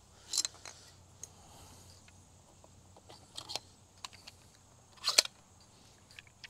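Short plastic clicks and clacks from handling a 3D-printed CO2-powered Nerf shotgun pistol while a Rival shell is loaded and the breech shut, the loudest a quick double clack about five seconds in.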